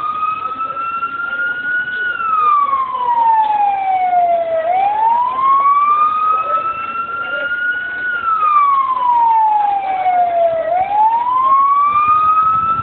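Emergency vehicle siren in a slow wail, its pitch climbing for about three seconds and falling for about two and a half, repeating about every six seconds.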